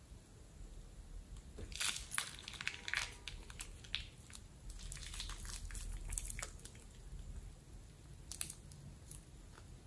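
Slime squeezed out of a plastic piping bag, the bag crinkling and the slime squelching in a dense run of crackly clicks for several seconds, then a few single crackles near the end as the empty bag is handled.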